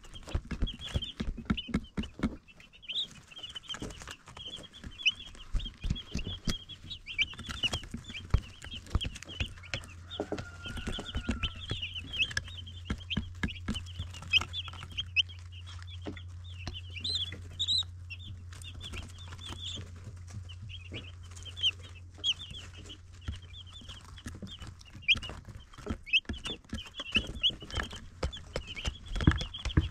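Baby chicks peeping nonstop, many short high chirps overlapping, with frequent small sharp ticks among them. A steady low hum sets in about a third of the way through and fades out near the end.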